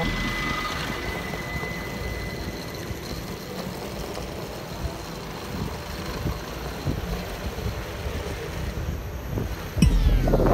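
Steady city street traffic noise with wind rushing over the microphone of a camera moving along the street. A louder sound cuts in suddenly near the end.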